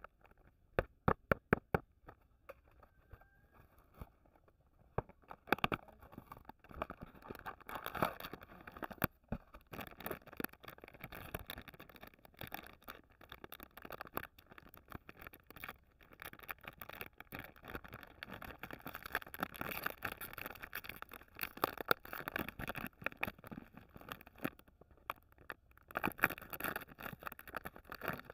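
Hands handling a cardboard biscuit box, with a few sharp clicks, then a long stretch of crinkling from the foil-sealed Munchee Chocolate Fingers packet being handled and opened.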